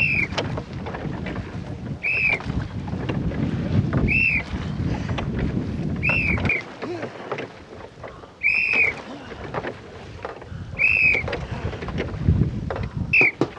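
Short whistle blasts, each rising then falling, about one every two seconds, seven in all. Under them wind buffets the microphone and the oars of a racing longboat splash and knock; the wind rumble eases about halfway through.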